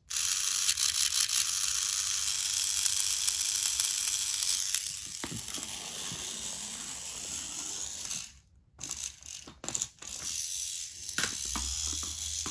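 Battery-powered Billy toy train engine's small electric motor and gears running with a steady whirr, in working order. It cuts out for a moment about eight seconds in, runs unevenly, then steadies again.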